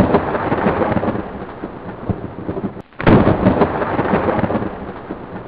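Thunder: a rumbling peal fades out, breaks off briefly about three seconds in, and a second loud crash of thunder follows and rumbles away.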